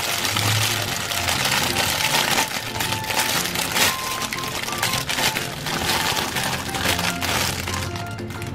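Thin clear plastic bag crinkling as hands handle and open it, over background music.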